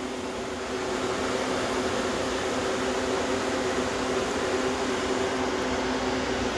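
Small Tecumseh hermetic compressor of a homemade 2400 BTU air-conditioning system running on its first start-up, a steady hum with several held tones, a little louder about a second in. The evaporator fan and condenser water pump run along with it.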